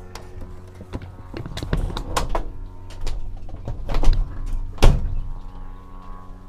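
Knocks and thuds from handling inside a glider cockpit, several in a row, the loudest two about four and five seconds in, over a steady low hum.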